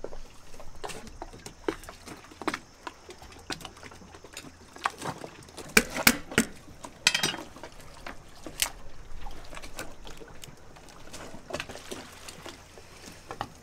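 Cooked lobster legs being cut with a knife on a cutting board and broken open by hand: irregular clicks, snaps and knocks of shell, with a cluster of sharper cracks about six seconds in.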